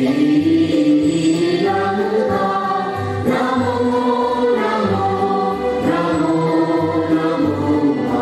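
A choir sings a slow song over instrumental backing, with long held notes that move step by step above a recurring low bass note.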